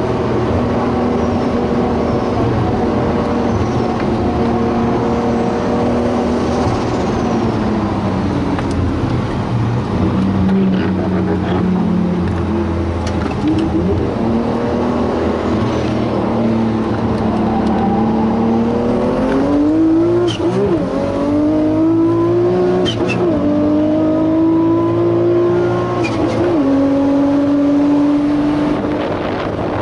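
Nissan Skyline R34 GT-R's 3.2-litre RB straight-six running under way, heard from inside the cabin. The engine note holds fairly steady at first. In the second half it climbs in pitch and drops back several times, as the car pulls through the gears.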